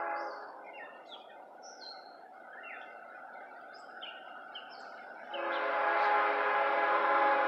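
Distant horn of a CSX GE ES44AH diesel locomotive sounding its steady chord: one blast cuts off just after the start, and a long, louder blast begins about two-thirds of the way through. Songbirds chirp in the gap between the blasts.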